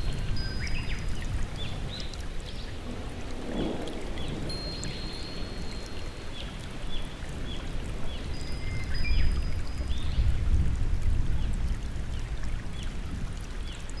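Steady rain and running water, with small birds chirping over it in quick repeated notes and a few thin high whistled notes each held about a second.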